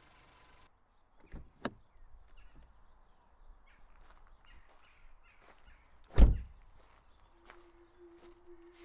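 A car door being handled: two sharp clicks of the latch a second or so in, a few small knocks, then the door slammed shut with one loud, heavy thud about six seconds in. A steady low hum tone starts near the end.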